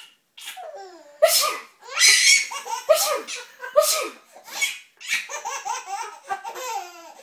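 A baby laughing hard in a string of high-pitched, breathy belly laughs, with gasping bursts between the peals.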